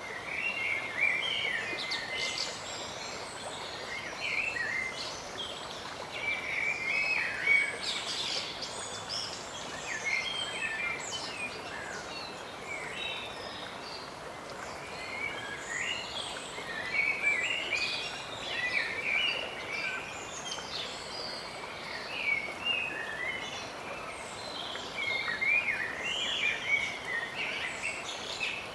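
Mallard ducklings peeping, short high chirps coming in irregular bursts, over a steady background hiss.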